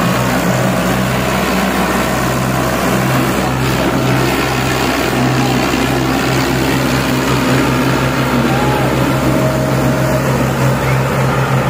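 Diesel engines of a Ghazi tractor and a Massey Ferguson 240 running loudly with a steady throb, the tractors chained back to back for a tug-of-war pull.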